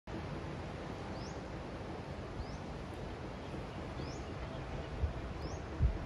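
Steady wind noise with low gusts buffeting the microphone, twice near the end. A bird gives a short rising chirp four times, about every second and a half.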